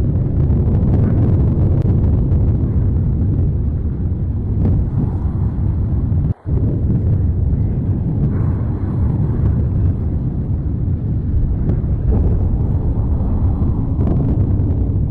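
Mount Etna's Voragine crater erupting: a continuous deep rumble, broken once by a split-second dropout about six seconds in.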